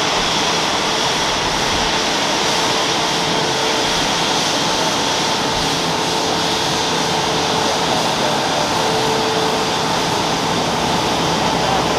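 Airbus A350's Rolls-Royce Trent XWB jet engines at low taxi power: a steady rushing noise with a faint whine running through it as the airliner rolls past.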